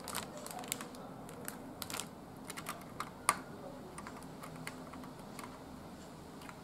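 Faint, scattered metal and plastic clicks and taps as fingers work the retention lever and lift the hinged load plate of a motherboard CPU socket. The sharpest click comes a little after three seconds in.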